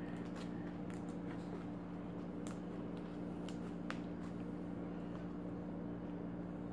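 Slime being squeezed and worked by hand, giving scattered small sharp pops and crackles, the strongest about four seconds in, over a steady low hum.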